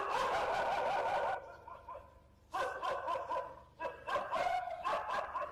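Dogs barking in three bouts, the first and last each over a second long, with short quiet gaps between.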